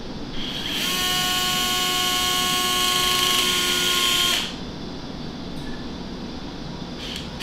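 Battery-powered surgical drill spinning a thin guide pin into the dog's pelvic bone: a steady high whine of even pitch that starts about half a second in and stops suddenly after about four seconds.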